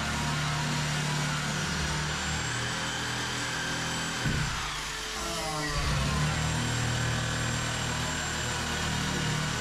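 Corded reciprocating saw running and cutting overhead into fiberglass and foam. Its motor drops away about four seconds in, then picks back up and keeps cutting.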